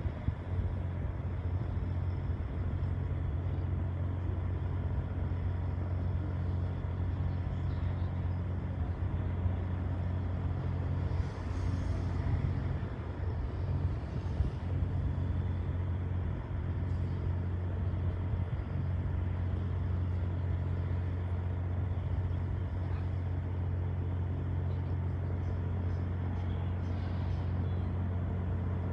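Steady low mechanical rumble with a constant hum, unchanging throughout, and a few faint rustles in the middle.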